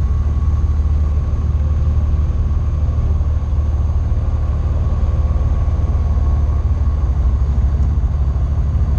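Tecnam P2002JF's Rotax 912 four-cylinder engine and propeller running steadily at low power while taxiing, heard inside the cockpit as a steady low drone with a faint steady higher tone above it.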